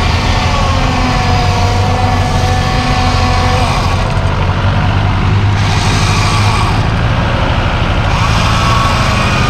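Off-road 4x4's engine running loudly and steadily, with a faint higher whine over the first few seconds.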